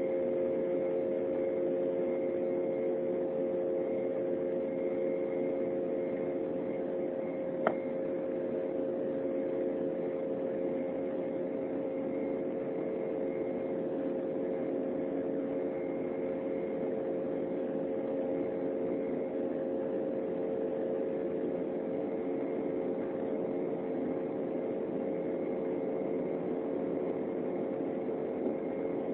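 Steady cabin drone of an Embraer 195 climbing after takeoff: its GE CF34 turbofans and the airflow make an even rush with a few constant humming tones. A single sharp click comes about eight seconds in.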